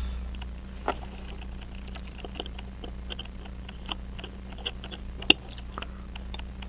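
Light, irregular ticks and clicks from the Hamilton 910 pocket watch as it is handled and examined, with a sharper click about a second in and a louder one just past five seconds, over a steady low hum. The watch is not running properly and keeps stopping.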